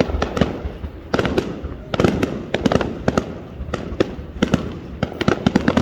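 Aerial fireworks going off in quick, irregular succession: many sharp bangs and crackles, several overlapping at a time.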